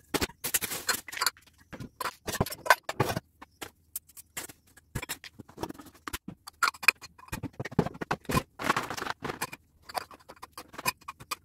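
Kitchenware being wiped and put away on cupboard shelves: a colander, cups and plastic bottles set down in a run of irregular clinks and knocks, with rustling of wet wipes.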